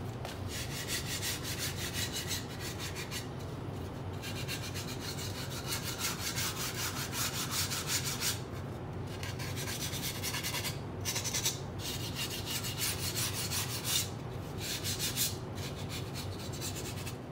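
Hand-sanding the edge of a workpiece with a small red sanding pad: quick back-and-forth scratchy strokes in several runs, broken by short pauses.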